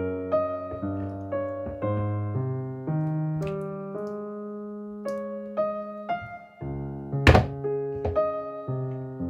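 Background electric-piano music, a steady run of single notes. Over it come a few short knocks of kitchen utensils against the mixing bowl as butter is scraped in, the loudest about seven seconds in.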